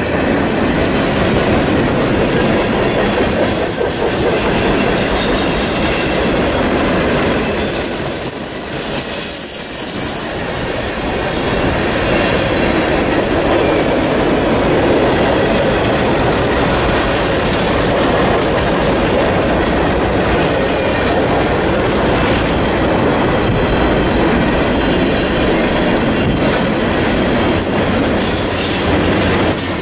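Mixed freight cars of a Union Pacific train rolling past: a steady loud rumble and rattle of steel wheels on rail, with high-pitched wheel squeals at the start, about ten seconds in, and near the end.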